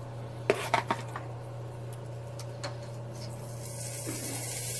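A few quick clicks and clatters of grilling tools at the barbecue grill about half a second to a second in, as food is handled on the grate. Near the end a sizzling hiss builds up.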